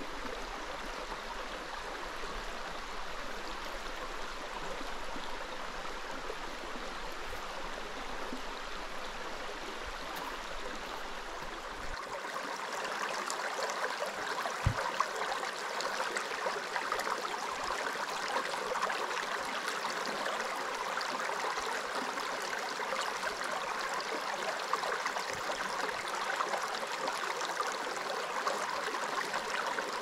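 Flowing creek water rushing steadily over rocks. About twelve seconds in it grows louder and brighter.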